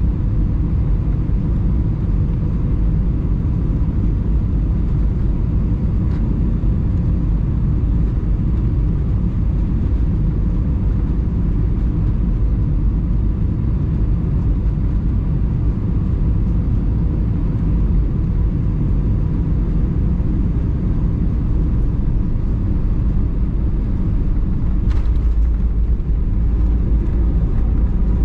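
Steady low rumble of an Airbus A320-200 heard from inside the cabin, with a faint steady hum over it.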